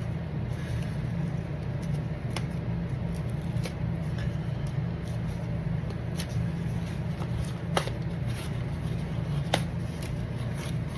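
Steady low hum with scattered short clicks and scrapes of packaging being handled while a heavily taped trading-card mailer is opened.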